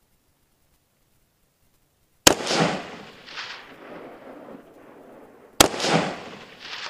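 Two shots from an ArmaLite SPR Mod 1 AR-15 rifle in 5.56 mm, about three seconds apart. Each is a sharp crack followed by a rolling echo that dies away over a second or two.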